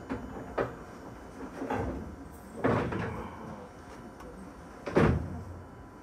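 A few separate knocks and thumps, like a door being opened and shut, in the cab of a stopped electric train. The loudest thump comes about five seconds in.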